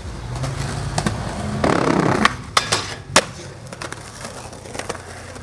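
Skateboard wheels rolling on pavement with a steady rumble. Between about one and three seconds in there is a short rough scrape and several sharp clacks of the board, the loudest near three seconds.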